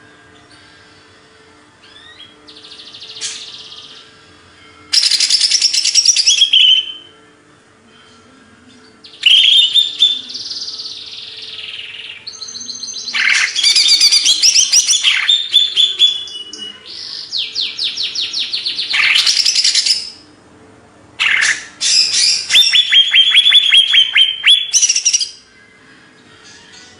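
Cucak ijo (greater green leafbird) singing loudly in repeated bouts of rapid trills, chattering notes and whistled glides, with short pauses between the bouts.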